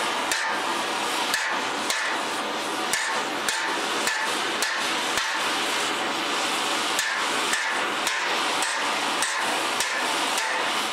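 Hammer striking the heated steel of a Willys MB jeep's front bumper, about two blows a second with a short break in the middle, to straighten the bent bumper. An oxy-acetylene torch flame keeps up a steady hissing roar under the blows.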